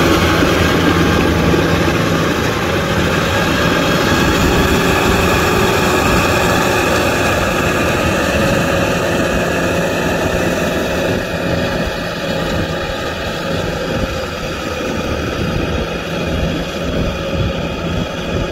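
Kubota M6040SU tractor's diesel engine running steadily under load as its rear rotavator churns through wet mud. The sound grows slowly fainter as the tractor moves away.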